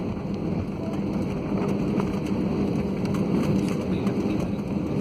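Cabin noise of an Airbus A320-family airliner on its landing roll, spoilers deployed: a steady low roar of engines and runway rumble with a constant hum.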